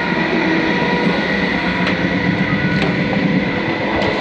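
Class 319 electric multiple unit running along the line, heard from inside the carriage: a loud, steady rumble with a constant whine over it and a few sharp clicks.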